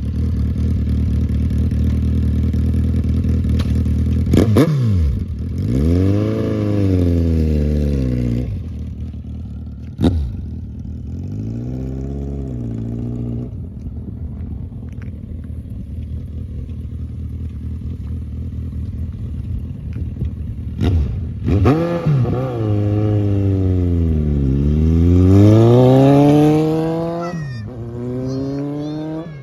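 Suzuki Bandit 1250's inline-four engine running, its revs rising and falling several times, with the biggest drop and climb about two thirds of the way through. A few sharp clicks cut in along the way.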